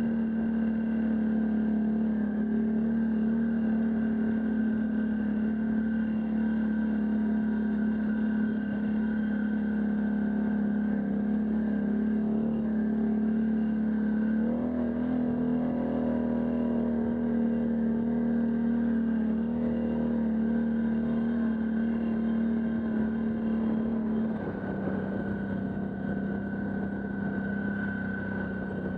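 Can-Am Outlander ATV engine running at a steady speed while riding, its pitch stepping up slightly about halfway through and dropping lower near the end.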